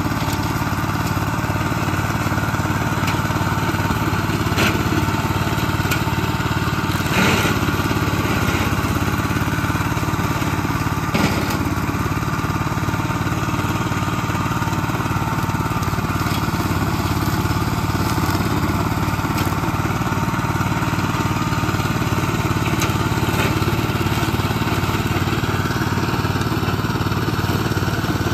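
Engine of a Gravely walk-behind tractor from around 1970 running steadily under load, driving a brush hog whose two stacked blades spin fast as it cuts brush. A few sharp knocks stand out over the drone.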